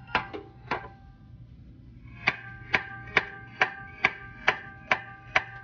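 Hammer tapping on the starter of a Cessna 172M's engine, each strike giving a sharp metallic knock with a brief ring: three quick taps, a pause of about a second and a half, then a steady run of about two taps a second. The taps are meant to free a stuck Bendix drive, whose starter spins without throwing the pinion out to engage the flywheel.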